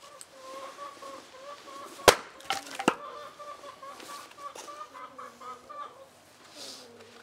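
A hatchet blow into a log on a chopping block about two seconds in, followed by a few lighter knocks and cracks as the wood splits. Chickens cluck throughout in a long, wavering call.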